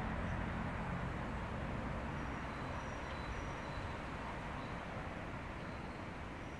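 Steady outdoor background rumble, with faint short high bird chirps now and then.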